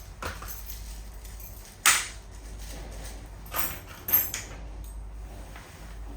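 A few sharp clacks and knocks, one about two seconds in and another about four seconds in, over a low steady rumble: hard hardware being handled during lock work on a cabin door.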